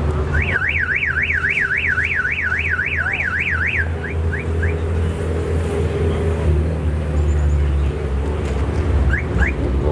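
Car alarm siren warbling rapidly up and down, about three sweeps a second, for some three and a half seconds, then a few quick rising chirps; two more chirps come near the end.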